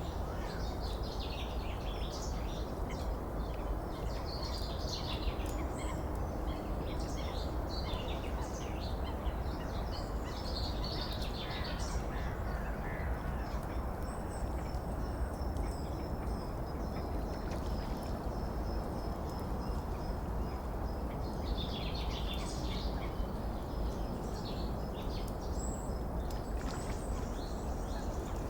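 Wild birds calling in clusters of quick, high chirps every few seconds over a steady rush of running water. A thin, high, steady note holds for several seconds through the middle.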